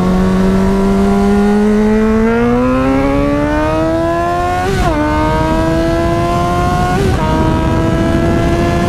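2009 Yamaha FZ6R's inline-four through a Hindle exhaust, holding a steady note for about two seconds, then accelerating hard with the pitch climbing. It drops briefly for quick upshifts about five and seven seconds in.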